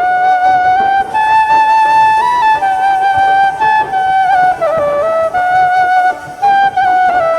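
Background music: a single flute-like wind instrument playing a slow melody, one held note after another with small bends between them.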